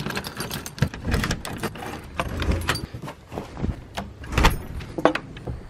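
Keys jangling and clicking in a doorknob lock as a door is unlocked and opened, with a quick run of clicks and knocks.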